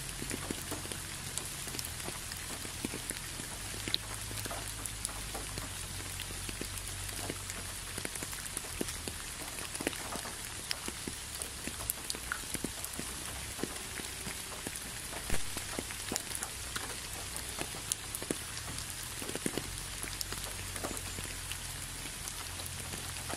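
Steady rain falling, with many separate drops striking close by over the even hiss, and one louder drop about two-thirds of the way through.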